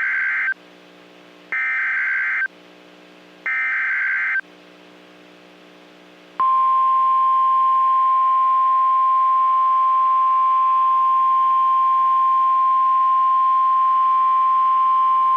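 Emergency Alert System SAME header: three short digital data bursts about a second each, the first already under way. After a short pause comes the NOAA Weather Radio 1050 Hz warning alarm tone, one steady pitch held for about nine seconds and then cut off. The sequence marks the start of a broadcast tornado warning.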